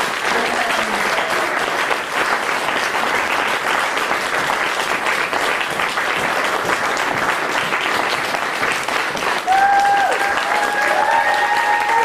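Theatre audience applauding steadily as the cast takes its bows, with a few voices whooping in cheers from about nine and a half seconds in.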